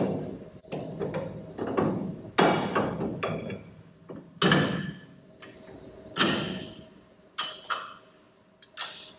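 Irregular metal knocks and clunks, about ten over several seconds, some ringing briefly, as an axle shaft is fitted into a Ford 9-inch rear axle housing.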